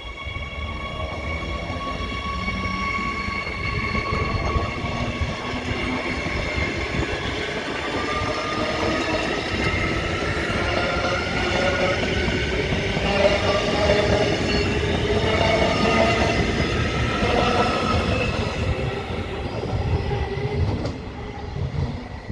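Queensland Rail electric multiple-unit train running past along the platform, its wheels rumbling on the rails. An electric whine of several steady tones starts to rise in pitch about eight seconds in.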